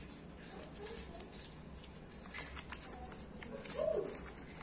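Light clicks and taps of a pen and a folded paper note being handled on a table, with a short rising-then-falling tonal call near the end.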